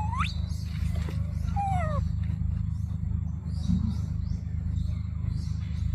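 Animal calls in forest: a whistled call sweeping sharply up in pitch at the start, then a falling call around two seconds in, with scattered high chirps over a steady low rumble.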